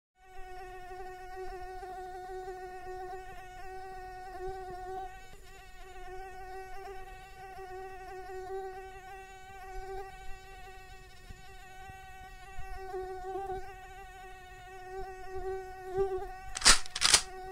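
Mosquito whining in flight, one high buzzing note that wavers slightly in pitch and carries on steadily. Near the end come two loud, sharp smacks.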